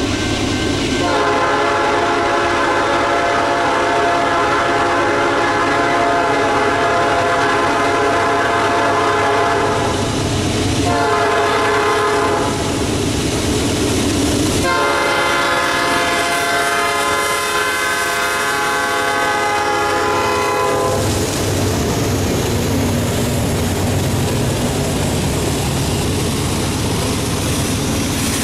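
Norfolk Southern freight locomotive's horn sounding a long blast, a short blast, then another long blast as the train approaches and passes. After the horn stops, the steady rumble of double-stack intermodal cars rolling by.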